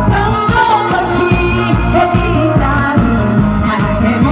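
Live band playing a Korean pop song, amplified: a singer's voice over saxophones and electric guitar with a steady beat.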